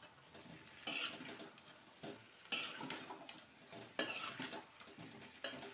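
Metal spatula stirring boiled potato chunks and peas in a metal kadai, scraping against the pan in about four separate strokes, roughly one every second and a half.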